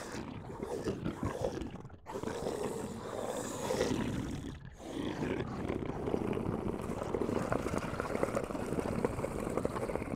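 Deep, rough growling roar in long drawn-out stretches, breaking off briefly about two and four and a half seconds in.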